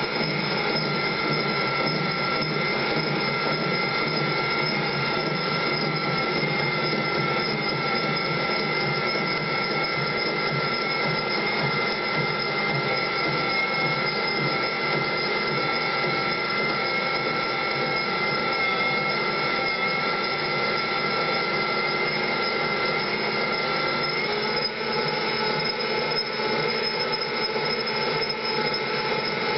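A machine running steadily with a continuous whine of several high tones over a grinding hiss; one of the tones drops out about 24 seconds in.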